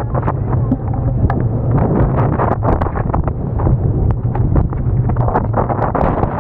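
Strong wind buffeting the microphone aboard a racing sailboat, over a steady low hum, with frequent short, sharp ticks and knocks.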